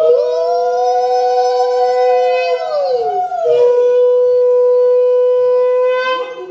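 Two conch shells (shankha) blown together in long steady blasts, one pitched higher than the other, sounded as an auspicious call during a Hindu blessing rite. Both blasts dip in pitch and break off about three seconds in. The lower conch then sounds alone in a second long blast that ends near the end.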